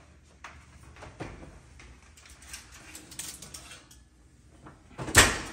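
A baking sheet being taken out of a hot oven: light clicks and metal scrapes of the oven door and rack, then one loud bang near the end.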